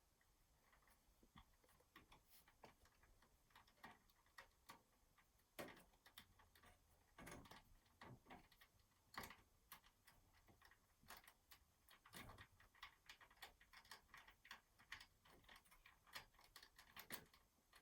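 Faint, irregular clicks and light taps of screws being driven in to mount an SSD in a PC case.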